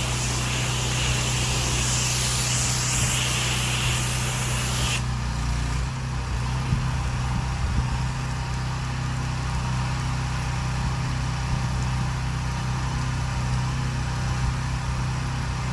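Pressure washer engine running steadily, with the hiss of water spraying from the wand until about five seconds in, when the spray stops and the engine runs on alone.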